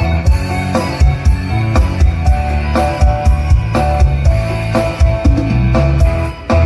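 Music with a drum kit beat and heavy bass, played loud through a home stereo system; it dips briefly about six seconds in.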